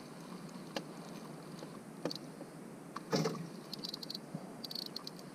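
Scattered light clicks and knocks of fishing tackle being handled in a small boat, with a short clattering rattle about three seconds in and a run of small high ticks near the end, over a steady outdoor background hiss.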